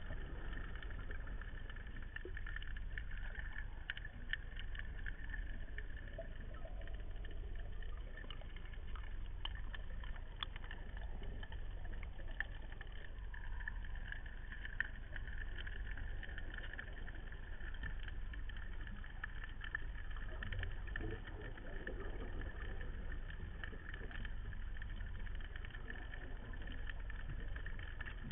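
Muffled underwater ambience recorded through a camera's waterproof housing: a steady hiss and low hum with scattered faint clicks.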